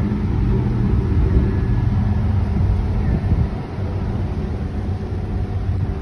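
Train ferry's engines running under way, giving a low, steady droning rumble as the ship leaves its berth. The rumble eases slightly a little past halfway.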